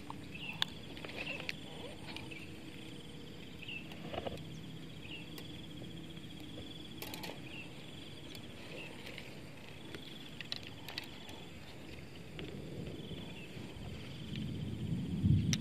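Insects trilling in a high, pulsing chorus over a steady low background rush, with a few scattered clicks; a louder low rumble comes in near the end.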